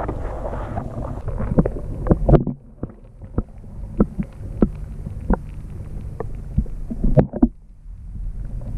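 Muffled sound from a GoPro Hero 5 Black under water in an aquarium: a steady low hum, with scattered sharp clicks and knocks from the camera being handled and moved. The sound drops away briefly twice.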